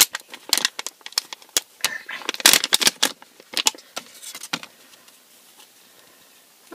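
Crinkling and rustling of a foil blind-bag packet with light clicks and rattles of small plastic pieces as fingers dig out a figure's round plastic base. The handling noise stops a little past the middle.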